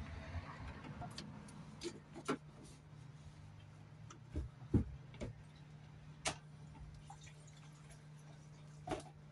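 Scattered plastic clicks and knocks from a diesel Mercedes Sprinter's in-tank fuel pump assembly, handled and worked loose from the tank opening. The loudest knocks come about halfway through and near the end, over a steady low hum.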